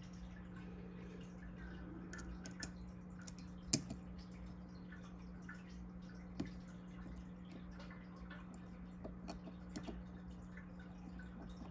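Scattered light clicks and taps of small folding-knife parts and tools being handled and fitted during hand reassembly, the sharpest a little under four seconds in, over a steady low hum.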